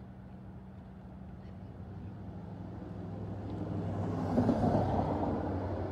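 Long Island Rail Road diesel-hauled train approaching and passing: a low engine drone and rail rumble that grow steadily louder, loudest about four and a half seconds in, then ease off.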